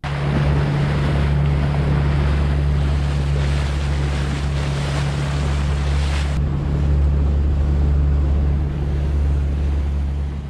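Mercury 60 hp outboard motor running steadily as a small fishing boat trolls, a low even drone under wind buffeting the microphone and water rushing past the hull.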